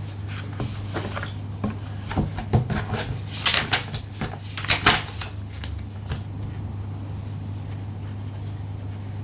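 Typing on a Neo80 mechanical keyboard with HMX Ice Lotus tactile switches, a POM plate and no internal foam. The keystrokes come in quick clacking runs that trail off about six seconds in, over a steady low hum.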